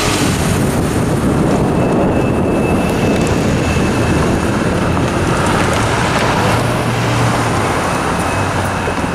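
Road traffic crossing the railroad tracks close by: cars and a pickup truck drive over the crossing one after another, their engines and tyres running steadily, with a low hum swelling about six seconds in.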